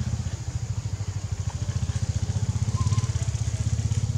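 A small engine idling, a low, rapid, even throb that holds steady.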